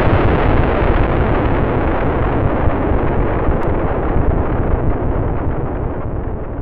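Explosion-like boom sound effect for the intro titles, heard as a long rumbling decay that fades slowly and grows duller.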